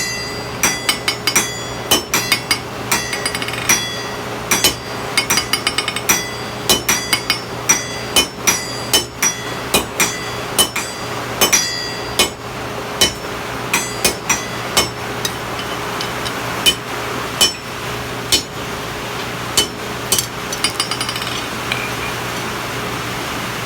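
Hammer blows driving half-inch square mild steel bar down onto a hardy cutting tool in the anvil, each strike ringing; the blows come in irregular runs of about one to two a second and stop shortly before the end. The cut is made with the steel fairly cold. Steady rain hiss underneath.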